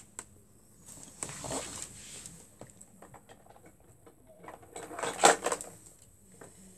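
Scattered clicks, knocks and rustles of objects being handled, with one louder clatter about five seconds in.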